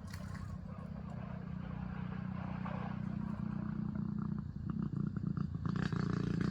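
A low, steady, engine-like drone that slowly grows louder, with a few faint clicks near the end.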